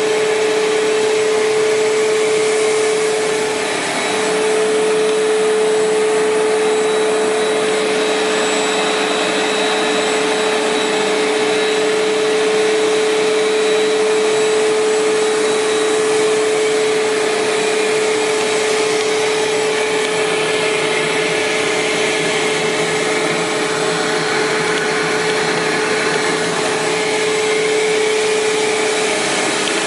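Cyclonic vacuum cleaner running steadily: a continuous rush of air with one strong, steady hum from the motor, dipping briefly about four seconds in.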